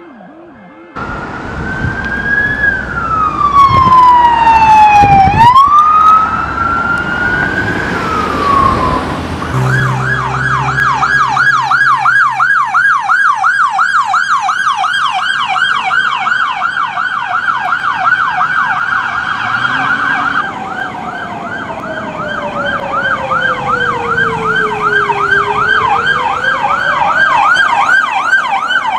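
Electronic sirens of responding police cars: first a slow wail rising and falling, loudest a few seconds in, then from about ten seconds in a fast yelp warbling about three times a second, with a second car's slow wail sweeping down and back up beneath it near the end.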